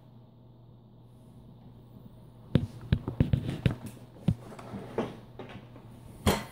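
A rapid run of knocks and rubbing close to the microphone for about a second and a half, starting about two and a half seconds in, then a lone knock and a sharper single knock near the end.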